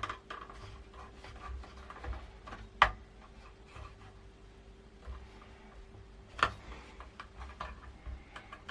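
A PCI expansion card and its metal mounting bracket being handled and pushed into place in a PC case: scattered light clicks and scraping, with two sharper clicks about three seconds and six and a half seconds in.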